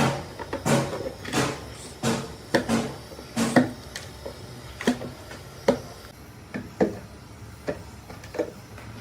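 A series of hard knocks and clunks, roughly one or two a second, lighter taps in the last few seconds.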